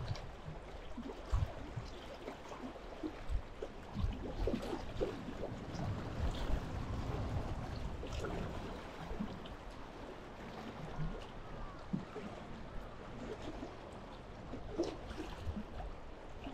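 Choppy lake water lapping and slapping against the shore in small irregular splashes, with wind rumbling on the microphone.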